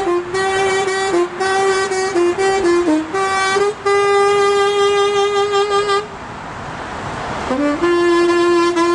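A solo melody instrument, reedy and horn-like, plays a tune in short stepping notes with one long held note in the middle. About six seconds in it breaks off for a moment of rising street noise, then the tune resumes.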